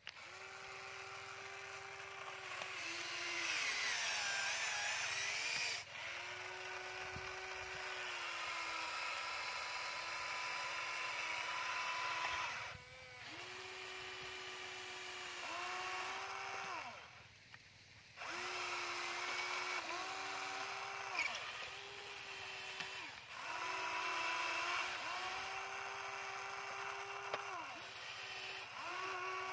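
Electric motors of a Huina radio-controlled toy excavator whining as the arm, boom and bucket move. The whine comes in stretches of a few seconds with brief pauses and shifts in pitch as different movements start and stop.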